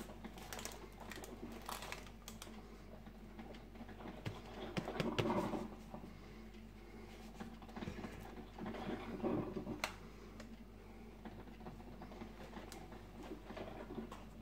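Light tapping, clicking and rustling from hands handling a foil bag of ground coffee and a plastic tub of coffee grounds, with two louder rustling scrapes about five and nine seconds in and a sharp click shortly after the second. A coffee scoop goes into the grounds near the end.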